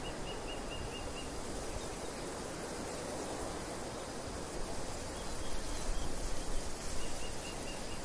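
Steady wind noise, swelling in gusts that buffet the microphone about two-thirds through. A small bird gives quick runs of short high chirps, about five at the start and four more near the end.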